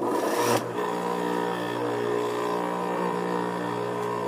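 Juki industrial sewing machine motor switched on: a sudden start with a brief noisy burst, then a steady hum.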